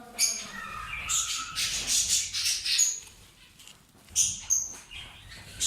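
Pet birds giving short, sharp, high-pitched chirps and squawks: a dense run of calls in the middle, a quiet spell, then a few more calls a little past four seconds in.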